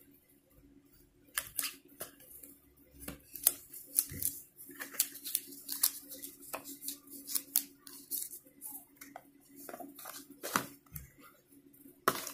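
Cardboard headphone box and its packaging being handled and opened: irregular scrapes, taps and rustles, with a louder knock near the end, over a low steady hum.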